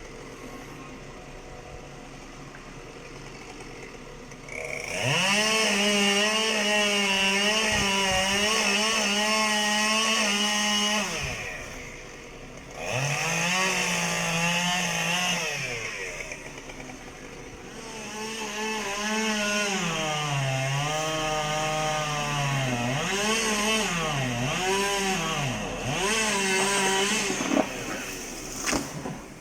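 Two-stroke chainsaw revving to full speed in long bursts, about five seconds in and twice more, with the engine note dipping and rising between bursts as it cuts.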